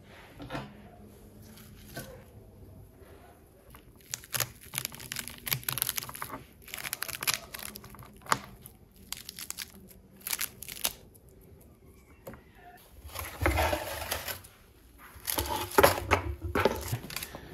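A pomegranate being pulled apart by hand, its rind tearing and the seeds crackling in short crisp bursts. Later come two longer, louder scrapes, which fit a metal baking tray being dragged out across the floor of a brick wood-fired oven.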